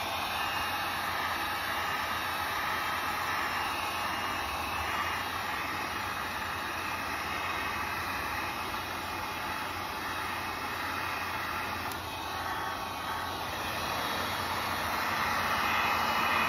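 Electric heat gun running steadily: the even rush of air from its fan, growing a little louder near the end. It is blowing hot air onto a plastic pop-bottle sleeve to shrink it over a cracked hockey stick blade.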